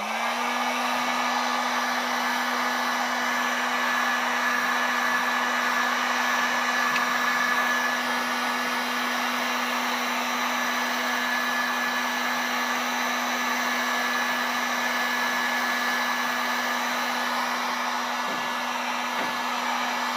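Electric heat gun running: the rushing air of its fan over a steady motor hum. It spins up right at the start, then runs evenly.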